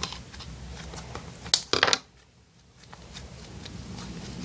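Freshly made clay slime being handled, with a soft background of squishing and two sharp clicks or pops about a second and a half in. The sound drops out briefly just after the clicks.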